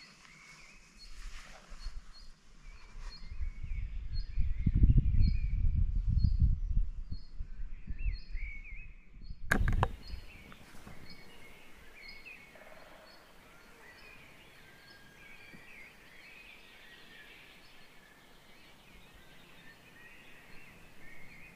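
Forest birds singing, with one bird repeating a short high note about twice a second and others warbling and chirping over it. For a few seconds in the first half, wind rumbles on the microphone, and about halfway through there is a sharp click where the recording changes.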